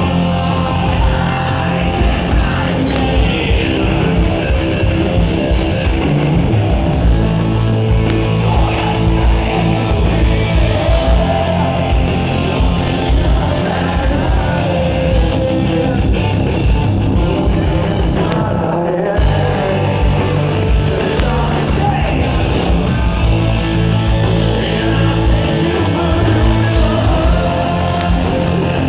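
Rock band playing live over a loud sound system: guitars, drums and a singing voice, with a brief break a little past halfway.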